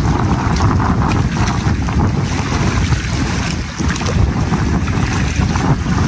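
Strong wind buffeting the microphone: a loud, steady rumble with a hiss above it.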